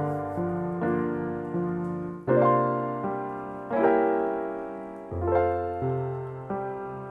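Slow, gentle piano music, chords struck every second or so and left to ring and fade.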